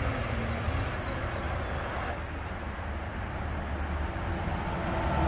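Steady outdoor background noise: a low rumble with hiss. A faint drone joins near the end.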